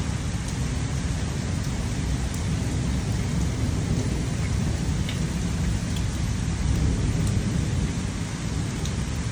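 Steady rain with a continuous low rumble beneath it and a few faint, scattered drip ticks.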